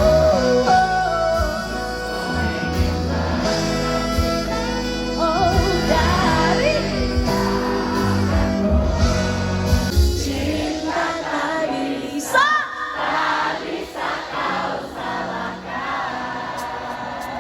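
Live pop ballad played by a band, with a sung melody over it. About ten seconds in, the bass and drums drop away, leaving lighter accompaniment under the voices.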